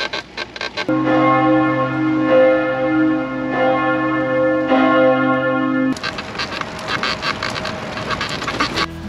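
Ringing bell tones: several pitches held together and changing every second or so. About six seconds in they give way to a fast, even pulsing rhythm.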